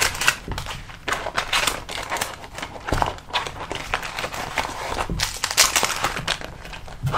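Plastic merchandise packaging crinkling and rustling in irregular bursts as it is handled, with a few soft knocks as items are set down.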